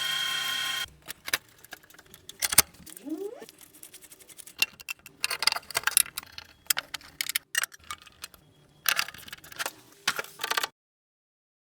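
Antique National Cash Register's mechanism being worked: irregular metallic clicks, clacks and rattles of keys and levers, with a short steady tone at the very start. The sound cuts off abruptly about a second before the end.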